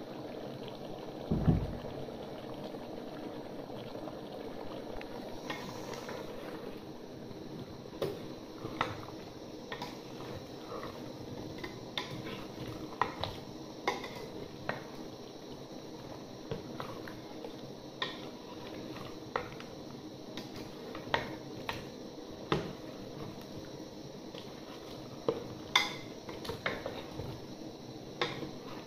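Food cooking in a pot: a steady bubbling simmer with scattered clinks and knocks of utensils against the pot, and one heavy thump about a second and a half in.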